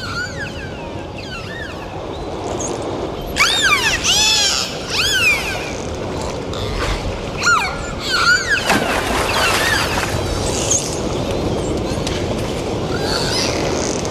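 Many short animal calls, each rising and falling in pitch and often overlapping, over a steady rushing background noise; the calls come thickest a few seconds in and again past the middle.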